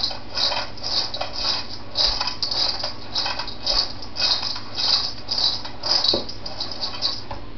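Popped popcorn tossed in a large stainless steel bowl: rhythmic rustling swishes of popcorn sliding against the metal, about two or three a second, as it is mixed with butter and salt.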